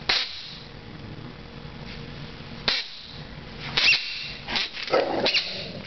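A dog's red rubber squeaky toy squeaking as the dog chews it: a short squeak at the start, then a cluster of quick, irregular squeaks in the second half.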